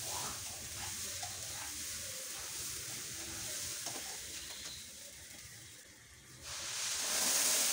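A steel spatula stirring and scraping rice and lentils frying in a nonstick pan, with a light sizzle and scattered scraping clicks. About six and a half seconds in, a louder, steady hiss starts suddenly as hot water goes into the hot pan and boils.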